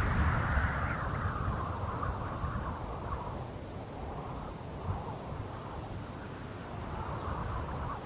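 Outdoor nature ambience: insects chirping in short high chirps, evenly repeated, over a rushing background that swells and fades every few seconds.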